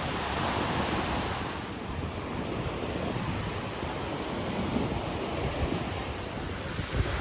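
Ocean surf washing in a steady rush, swelling in the first second or two, with wind buffeting the microphone.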